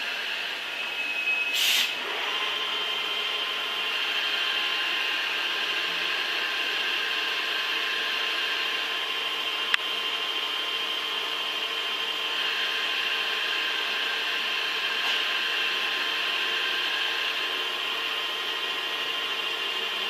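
A metal-cutting machine tool running with a steady high whine made of several held tones. A short, loud noisy burst comes just under two seconds in, and a sharp click near the middle.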